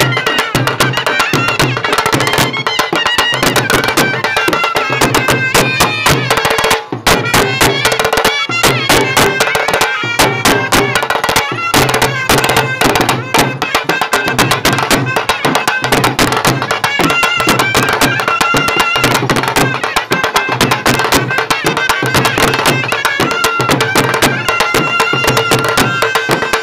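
Background instrumental music in a traditional folk style: a melody over a quick, steady percussive beat.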